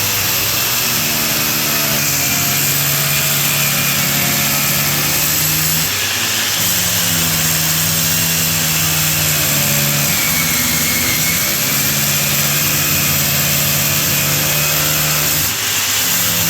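Electric drill running steadily under load, boring the hole through the wall for a split-unit air conditioner's line set. Its motor hum dips briefly about six seconds in and again near the end.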